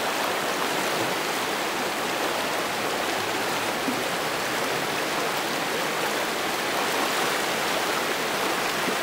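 Fast, shallow river rushing over rocks: a steady whitewater rush.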